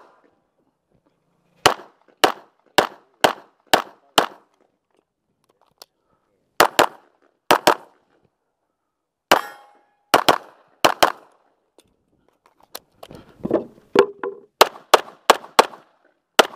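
Pistol firing in rapid practical-shooting strings, heard from the shooter's own position: first a string of single shots about half a second apart, then quick double-taps with short pauses between them, and a fast run of shots near the end.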